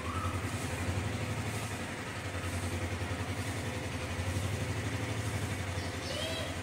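A steady low engine-like hum with a fast, even pulse; a bird chirps a couple of times near the end.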